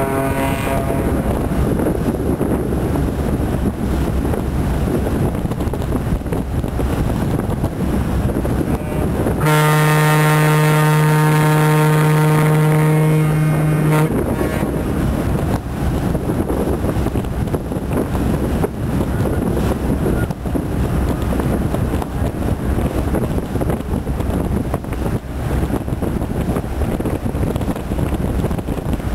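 A boat's horn sounds one long, steady blast of about four and a half seconds, starting about a third of the way in and cutting off suddenly. Under it, wind buffets the microphone over the low rumble of a boat under way. The end of an earlier blast fades out right at the start.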